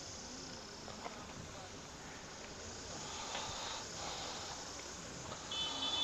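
Faint outdoor ambience beside a lake: distant voices over a steady background hiss, with a short, high-pitched tone near the end.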